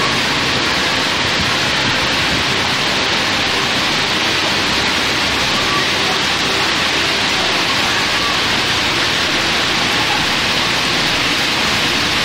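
Torrential rain pouring down and floodwater rushing along a flooded street: a loud, steady rush of water.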